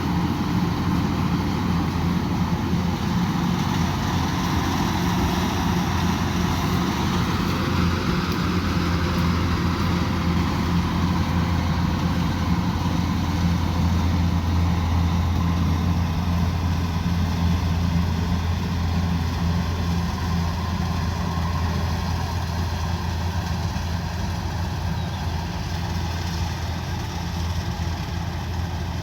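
Rice combine harvester's engine running steadily with a low, even hum, easing off slightly near the end.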